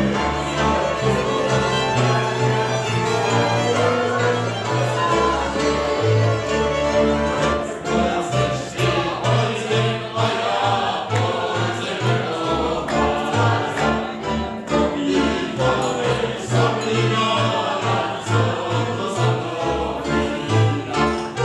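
Slovak folk band playing a song on two violins, cimbalom and double bass, with the double bass sounding low notes on the beat. The violins lead at first; partway through the men sing together over the struck cimbalom and bass.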